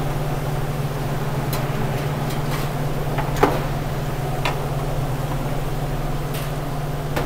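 Metal tongs clicking and clinking against wire cooling racks as fried chicken pieces are moved onto trays: a few sharp, irregular clicks, the loudest about three and a half seconds in. Under them runs the steady low hum of commercial kitchen equipment.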